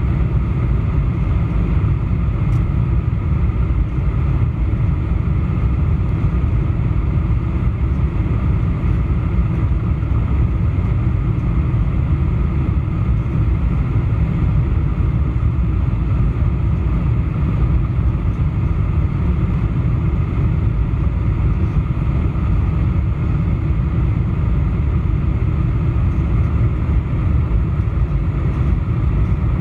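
Steady, deep rumble inside the cabin of a Boeing 747-400 on final approach, heard at a window seat over the wing: the jet engines and the rush of air over the fully extended flaps.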